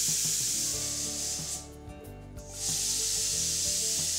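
Stovetop pressure cooker's weighted whistle valve venting steam with a loud hiss, in two blasts. The first stops about a second and a half in, and the second starts about a second later. Each whistle signals the cooker has come up to full pressure, and the whistles are counted to time the cooking.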